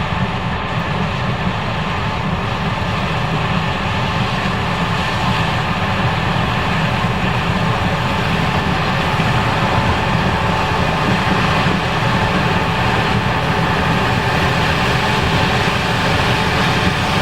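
Case IH 5140 Axial-Flow combine running steadily under load while harvesting corn, a loud, even machine noise with a faint steady hum.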